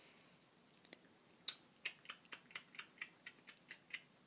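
A run of soft, quick mouth smacks at close range, about four a second, starting about a second and a half in, as a face and a small puppy's muzzle press together.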